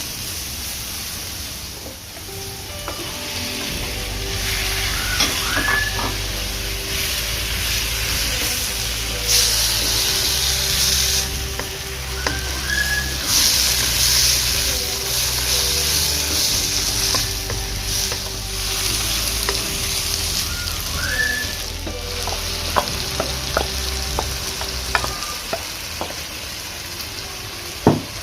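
Food frying in hot oil, a continuous sizzle that swells louder twice midway, with a few sharp clicks near the end.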